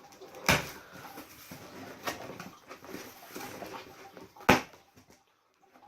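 A taped cardboard box being torn open by hand: crackling and rustling of packaging with a sharp rip about half a second in and a louder, sharper one about four and a half seconds in, then it goes quiet.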